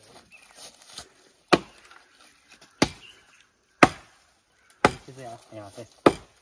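Axe chopping into a fallen dead log: five hard strikes roughly a second apart, with a lighter knock before them. A brief voice sounds between the last two strikes.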